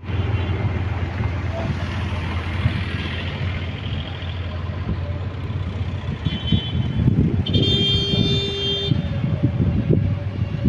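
Street traffic from a queue of vehicles with engines idling, a steady low rumble. A vehicle horn sounds once for over a second about three-quarters of the way through, just after a shorter, higher tone.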